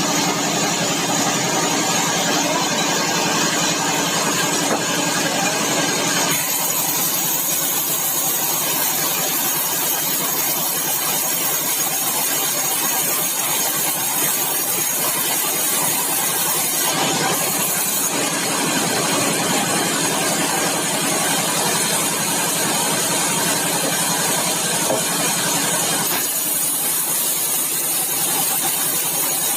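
Sawmill machinery running with a steady engine-like drone and hiss, its tone changing abruptly a few times.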